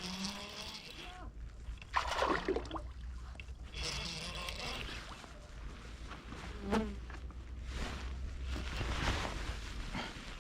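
A flying insect buzzing close to the microphone, its pitch swooping up and down as it passes, over a steady low rumble of wind.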